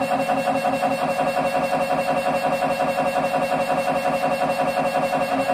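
Siemens Symphony Maestro Class 1.5 T MRI scanner's gradient coils running an imaging sequence: a loud, fast, evenly repeating pulsing buzz with a steady tone.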